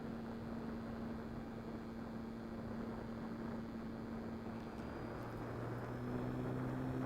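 Small electric motor and propeller of a radio-controlled plane running at steady throttle: a held hum over a rush of air noise. About five seconds in the hum changes pitch, as the throttle is changed.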